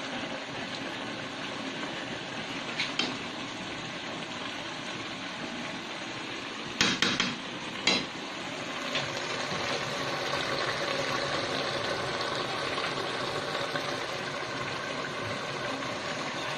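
Jackfruit stew simmering steadily in an aluminium pot on a gas burner while a metal spoon stirs it; the spoon clanks against the pot a few times, in a quick cluster about seven seconds in and once more a second later.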